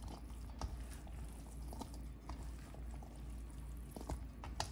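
Spatula stirring a moist cauliflower-rice and pork mixture in a stainless steel bowl: faint squishy scraping with a few light clicks against the bowl, over a low steady hum.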